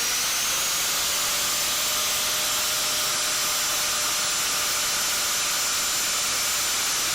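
Angle grinder with a cutting disc, its whine rising and levelling off about a second in, then running steadily with a hissing grind as it cuts into the seized joint shaft between the lower control arm and the vertical link.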